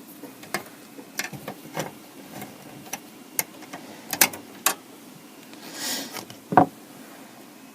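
Scattered clicks and taps of a 3D-printed plastic fan bracket being handled and fitted against the disk drive's metal chassis, with a brief scrape near six seconds and a louder knock just after.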